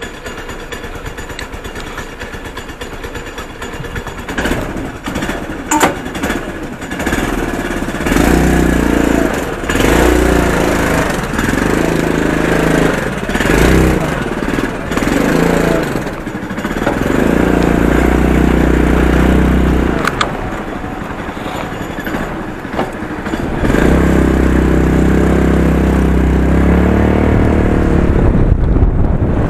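Honda Fusion scooter's single-cylinder engine running, quiet at first, then revving up and easing off several times.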